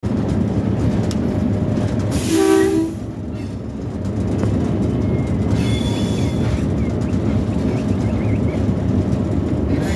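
Locomotive running along the track with a steady heavy rumble. About two seconds in it sounds a short horn blast of roughly half a second.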